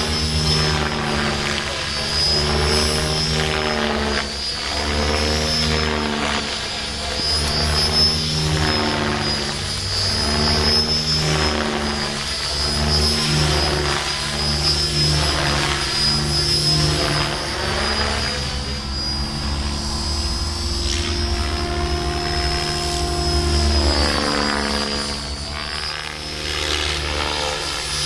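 Large radio-controlled Compass 7HV helicopter in flight: steady rotor and drive whine, with a high whine held throughout and the pitch sweeping up and down repeatedly as it manoeuvres and passes.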